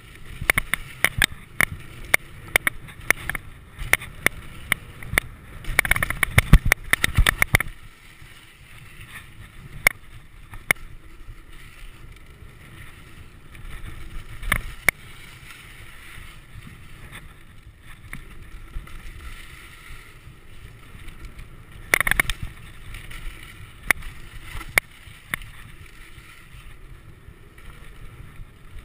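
Mountain bike riding down a dirt trail: a steady rolling noise from the tyres, with rapid sharp rattling knocks from the bike over rough ground through the first eight seconds, and another burst about 22 seconds in.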